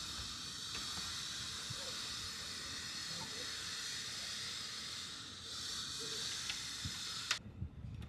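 A steady hiss that stops suddenly with a click a little after seven seconds in.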